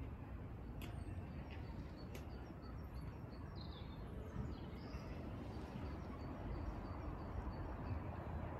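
Outdoor ambience: a low steady rumble with small birds chirping faintly now and then.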